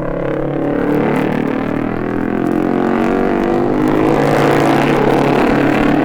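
A pair of Norton single-cylinder racing motorcycles at full speed, their engine note growing louder as they come closer, heard on an old mono record.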